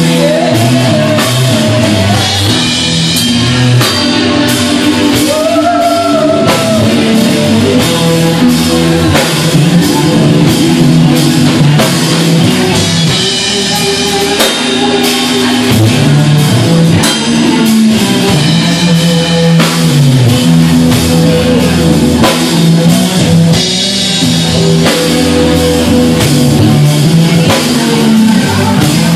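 Live rock band playing: electric guitar, bass guitar and drum kit together.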